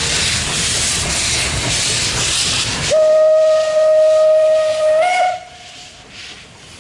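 Steam locomotives working a train past at close range: loud steam exhaust and hiss, then about three seconds in a steam whistle sounds one long note for about two and a half seconds, stepping up slightly in pitch just before it cuts off. Afterwards the exhaust carries on much quieter.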